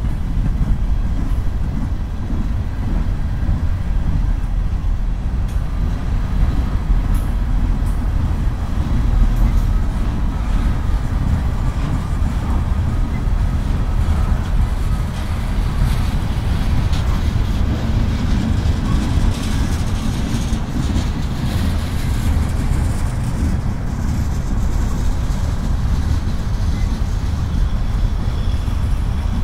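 Freight cars of a mixed manifest train rolling past: a steady, continuous rumble of steel wheels on rail.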